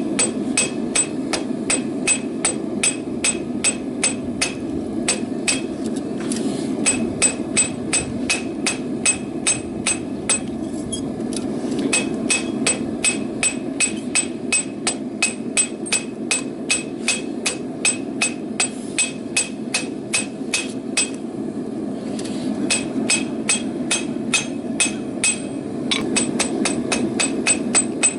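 Blacksmith's hammer striking hot rebar on an anvil, about three blows a second, each with a bright metallic ring, in runs broken by brief pauses. A steady low rush runs underneath.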